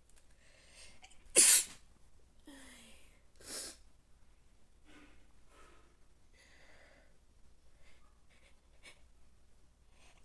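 A person sneezing from an allergy: one loud, sharp sneeze about a second and a half in, then a softer burst about two seconds later, with faint breaths and sniffs in between.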